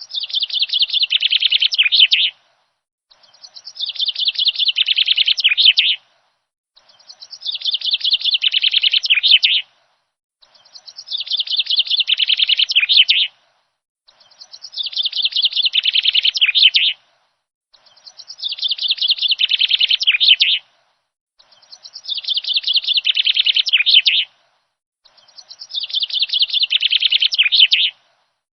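A songbird's song: the same fast, high trilling phrase, each about two and a half seconds long, repeated eight times with short pauses between. The phrases are nearly identical and there is no other background sound, as in a looped bird-song track.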